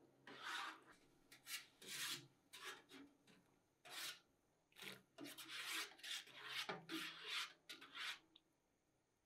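Powdered caustic soda and soda ash scooped with a plastic scoop and poured and stirred into a steel tank of water: a series of short, gritty scrapes and rustles.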